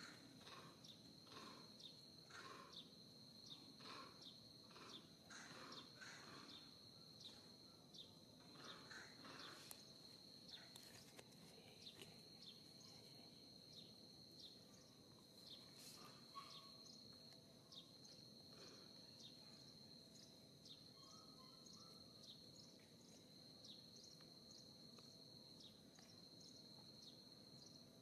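Faint outdoor insect drone: one steady high-pitched note held throughout, with short scattered chirps that are frequent for the first ten seconds or so and sparser after.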